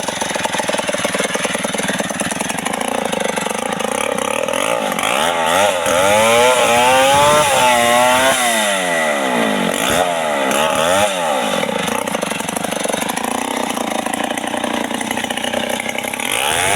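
Two-stroke chainsaw running hard while cutting the felling notch into a tree trunk. The engine pitch rises and falls several times between about five and twelve seconds in as the throttle is eased and opened.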